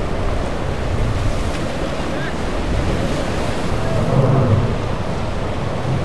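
Surf breaking and wind buffeting the microphone, with the low hum of a boat's twin outboard motors coming up strongly about four seconds in.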